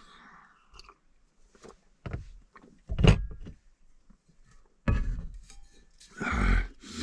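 A few separate knocks and thumps as an insulated steel water bottle and a small metal cup are handled, the loudest about three seconds in, with another clunk about five seconds in as the bottle is set down on a plastic storage bin.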